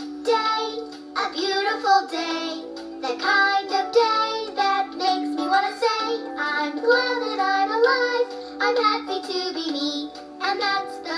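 A children's song: child voices singing a melody over instrumental backing.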